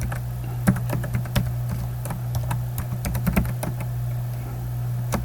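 Computer keyboard typing in scattered, irregular keystrokes, over a steady low hum.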